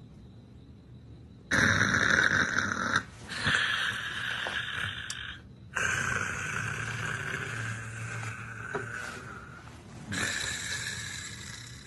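A man snoring loudly in four long snores, each lasting a few seconds, the first starting about a second and a half in.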